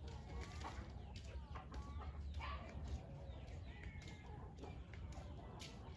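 Chickens clucking faintly now and then, over a steady low rumble.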